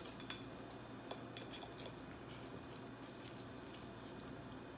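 Fingers tearing meat off a whole fried chicken: faint crackles of the crisp crust and soft, wet squishing of the juicy meat, with scattered small ticks.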